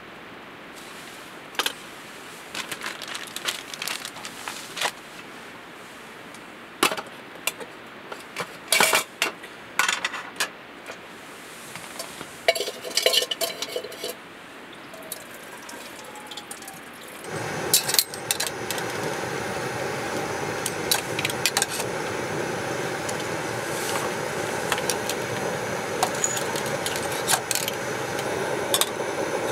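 Clinks and knocks of dishes and utensils being handled, in scattered short bursts. A little over halfway in, a steady noise starts and carries on, with more clinks over it.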